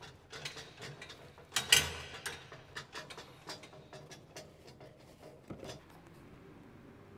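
Irregular clicks, taps and knocks of things being handled, with one louder scraping rustle a little under two seconds in.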